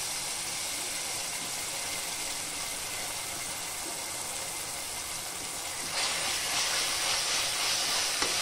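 Onions and ginger-garlic paste sizzling in hot oil in a pressure cooker, a steady hiss that gets louder about six seconds in as they are stirred.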